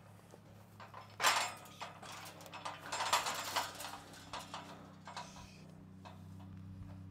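Scuffling and rattling knocks as turkeys are handled against a crate and wire panels: a sharp burst about a second in and a flurry around three seconds in, over a low steady hum.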